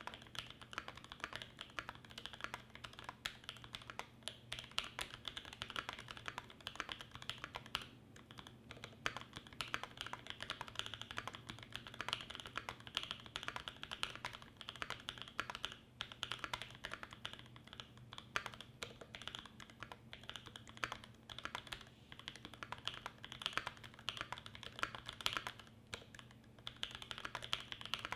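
Continuous fast typing on a Primus75 mechanical keyboard with lubed Creamcicle switches, an aluminum plate and GMK keycaps: a dense run of keystroke clacks with brief lulls about 8 and 16 seconds in.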